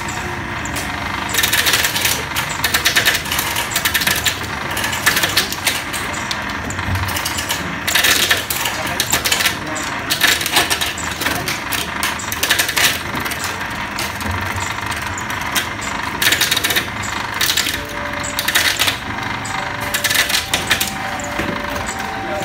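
Coconut shell-peeling machine with a 1 hp electric motor running steadily, its cutting head biting into a coconut's hard shell in irregular bursts of cracking and rattling as the shell is stripped off.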